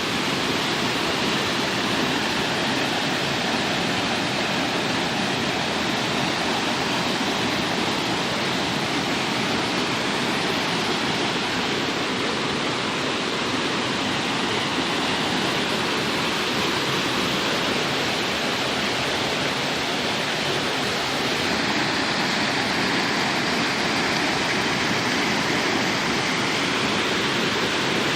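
A waterfall: falling water rushing steadily, an even roar that does not change.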